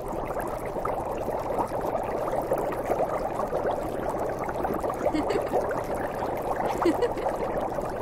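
Hot tub jets churning the water, a steady bubbling with scattered small gurgles.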